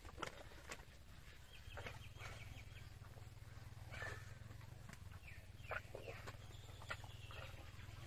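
Faint birds calling, with a short rapid trill about two seconds in and another near the end, over a low steady hum and a few scattered soft clicks.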